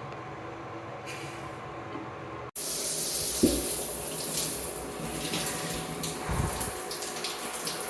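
Shower water running in a steady spray. The sound cuts out abruptly about two and a half seconds in and comes back louder, with a light knock soon after.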